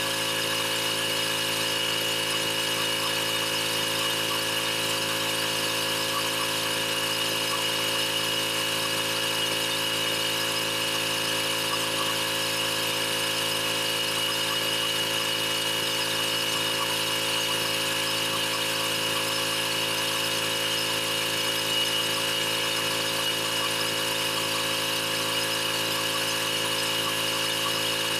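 Pressure washer running steadily: a constant mechanical hum with a high whine over a hiss.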